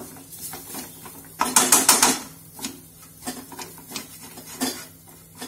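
A spatula scraping and stirring a thick onion-tomato masala in a frying pan: a series of short scrapes and clicks, with a loud quick run of them about a second and a half in.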